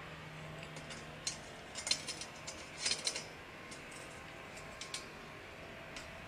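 Scattered light metallic clinks and scrapes from a thin stainless steel grill sheet being fitted onto tent stakes among rocks, the loudest about two and three seconds in.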